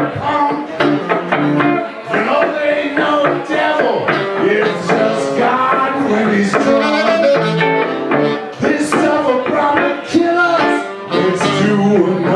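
Live duo music: a hollow-body electric guitar and a saxophone playing together, the saxophone carrying a melody over the guitar, in a tune in D minor.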